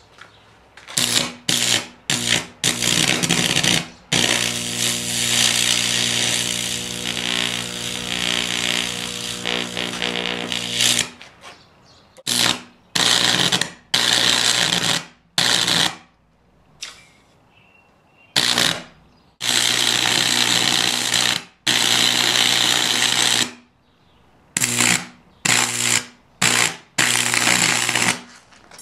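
A high-voltage electric arc burns through a raw potato between two wire electrodes. It makes a loud buzzing crackle over a mains hum and is switched on and off in bursts: the longest lasts about seven seconds and the rest one to three seconds, with quiet gaps between.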